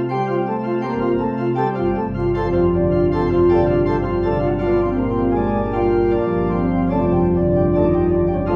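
Organ music: sustained chords, with deep bass notes coming in about two seconds in.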